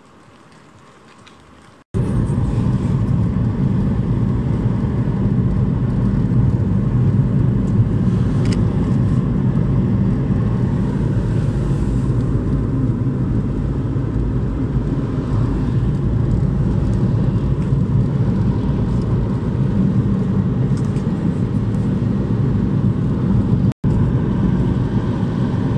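Road noise inside a moving car: a steady low rumble from the tyres and engine that cuts in suddenly about two seconds in, with a split-second dropout near the end.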